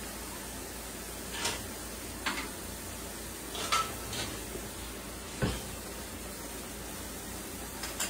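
Slider patties sizzling inside a closed Red Copper 5-Minute Chef electric cooker: a steady hiss with a few sharp pops of fat.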